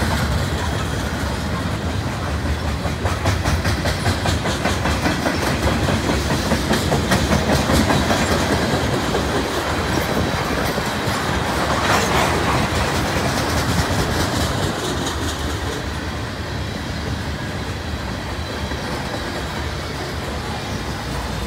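Mixed freight cars of a CN train rolling past, their steel wheels rumbling on the rails with a steady clickety-clack of wheel clicks over the rail joints. It gets a little quieter over the last several seconds.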